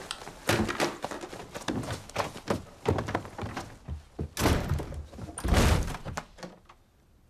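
Fight-scene sound effects from an action film soundtrack: a rapid run of thuds, knocks and slams, the heaviest two about four and a half and five and a half seconds in, dying away shortly before the end.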